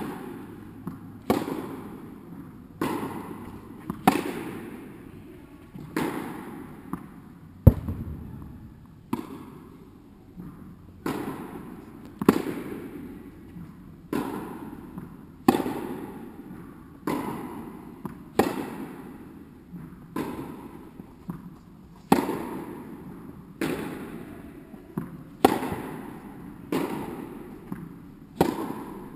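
Tennis ball being hit back and forth in a rally, a sharp strike about every one and a half seconds, each ringing on in the echo of a large indoor tennis hall. One louder, sharper knock about eight seconds in.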